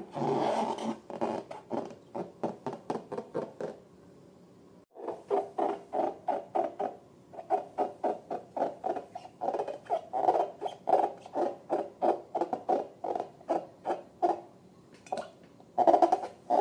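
Latex balloons rubbed and squeezed by hand in quick rhythmic strokes, about three to four a second, pausing briefly about four seconds in.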